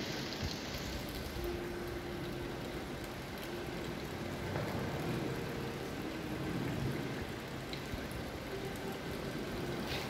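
Fountain water splashing steadily into a koi pond.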